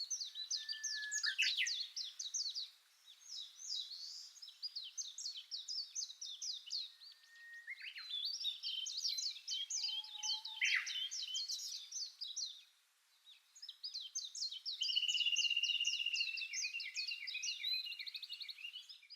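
A songbird singing a long, rapid song of quick high chirping notes, pausing briefly twice, with a steady high trill near the end.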